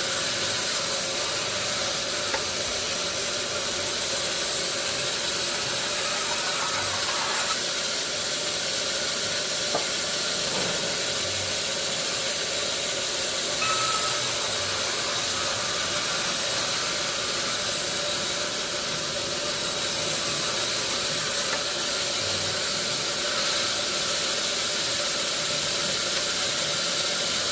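Sawmill machinery running steadily: a dense, even hiss with faint steady tones and no pauses.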